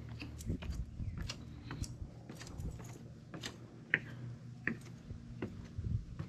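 Footsteps climbing a wooden staircase onto a wooden deck: irregular knocks and clicks of boots on the boards, over a steady low rumble.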